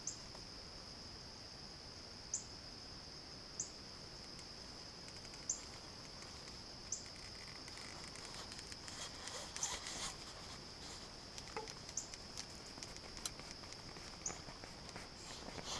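Evening woodland chorus of insects droning steadily at a high pitch, with a short high chirp every second or two. From about halfway in, faint rustling and crackling in dry leaf litter joins it.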